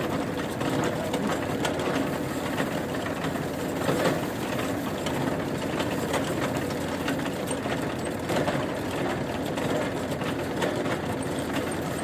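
Tractor engine idling steadily with a fast, even chatter, as potatoes tumble from the tipped wire basket of the harvester into a sack; a single knock about four seconds in.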